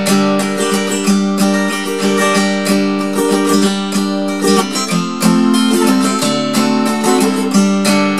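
Acoustic guitar with a capo, strummed in a steady rhythm through the chords D minor, C and A7, changing chord a few times.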